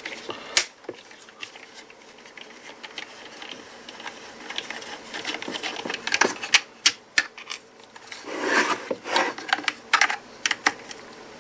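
Screwdriver bit turning self-tapping security screws out of a plastic power-tool battery case: light, irregular clicks and ticks, with a short spell of rasping about two thirds of the way through.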